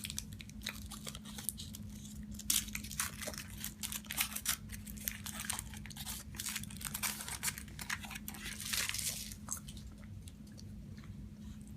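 Foil wrapper of a chocolate surprise figure crinkling and tearing as it is unwrapped, with many small crackles, densest through the middle.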